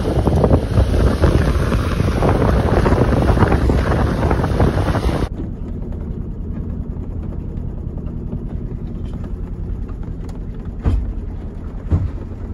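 Strong wind buffeting the microphone on the open deck of a sailing catamaran in a storm. About five seconds in, it cuts to a quieter steady low hum inside the cabin, with a few sharp knocks.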